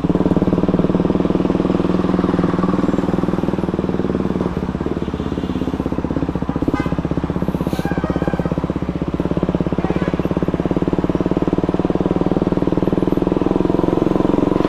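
A KTM Duke 200's single-cylinder engine running steadily under way, its firing pulses dense and even, with wind and road noise.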